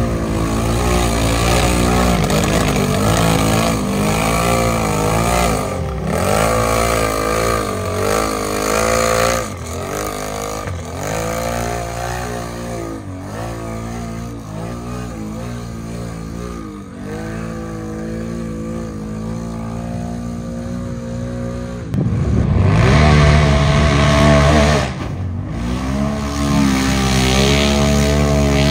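A mud-racing off-road vehicle's engine revs hard under load through a mud hole, its pitch swinging up and down over and over. It grows louder near the end.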